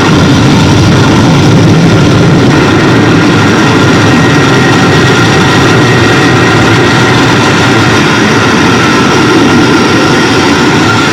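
Harsh noise electronics played at full volume: a dense, distorted wall of noise at an even, unbroken level, with a few thin steady tones running through it.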